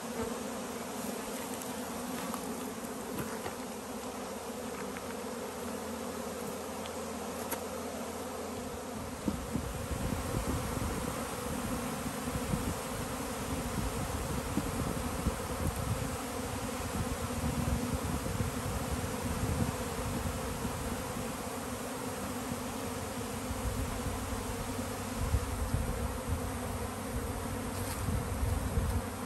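A mass of honeybees buzzing steadily in the air around an opened hive, a continuous drone of wingbeats. The colony is stirred up by having its comb and bees moved from an owl box into a new hive box.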